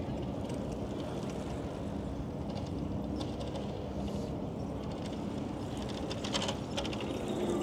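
Steady low rumble of a bicycle being ridden, tyre and wind noise on the microphone, with short runs of fast ticking about a third of the way in and again near the end.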